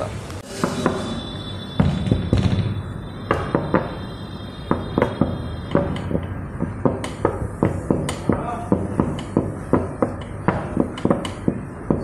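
A fist knocking on a door over and over. The knocks come a few at first, then a steady run of about two to three a second from about three seconds in.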